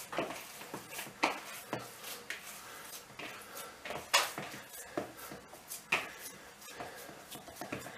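A hand working minced meat in a plastic bowl: faint, irregular light knocks and rubs against the bowl, the strongest about four seconds in and another near six seconds.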